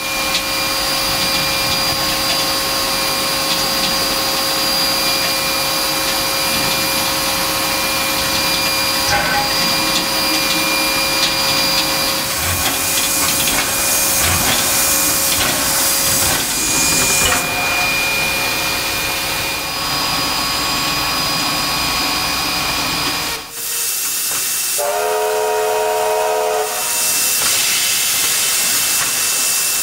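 Steady steam hiss in the cab of NM class steam locomotive NM25, with faint steady tones under it. About 23 seconds in the hiss drops away, and soon after a steam locomotive whistle gives one short blast of several notes at once, about a second and a half long.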